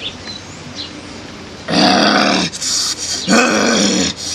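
A man's deep, wordless vocal bursts, twice, about two seconds in and again near the end: the diviner sounding the voice of the ancestral spirit he is listening to.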